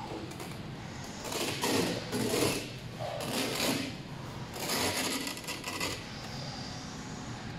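Back panel of an LED mirror being handled and lifted off its aluminium frame: three bursts of scraping and rustling.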